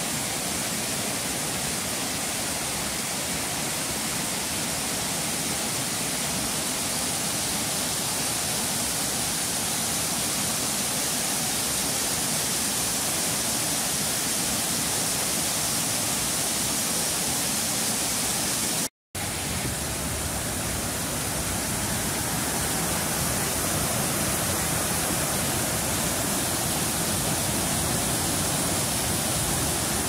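Rushing water of a rocky mountain stream tumbling over small cascades, a steady even rush of white water. It drops out for a split second about two-thirds of the way through, then carries on unchanged.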